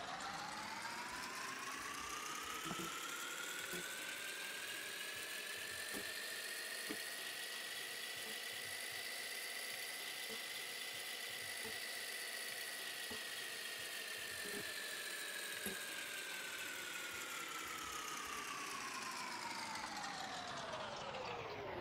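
Whirring fast-forward sound effect: a steady whir whose pitch climbs slowly and then falls back over about twenty seconds, with faint scattered ticks. It marks a sped-up stretch of writing.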